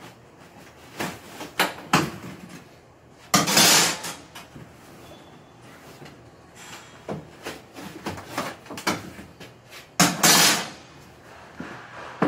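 Knocks and clunks against a Sportspal aluminum canoe hull, with two longer rasping noises, a few seconds in and near the end, as the hull's liner is worked loose by hand.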